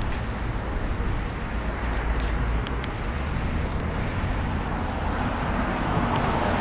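Street ambience of road traffic: a steady rumble of passing cars that grows a little louder near the end.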